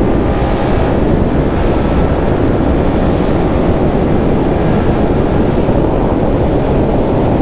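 Steady wind rushing over the camera's microphone at about 100 km/h on a Yamaha R15 V4 sport bike, with the single-cylinder engine running at a steady cruise underneath.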